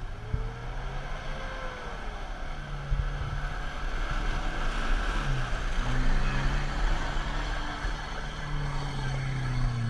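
Engine of an off-road 4x4 SUV pulling through a deep muddy rut, revving up and down several times.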